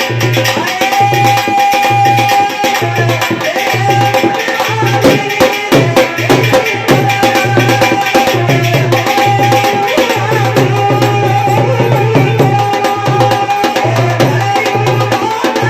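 Instrumental passage of Rajasthani devotional folk music (bhajan): a steady, rhythmic low drum beat with sharp percussion strikes under a held melodic line.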